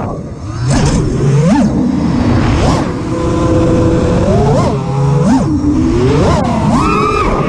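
Brushless motors and propellers of an Armattan Rooster FPV quadcopter whining in flight, picked up by its onboard camera. The pitch rises sharply with each throttle punch and drops back, about seven times.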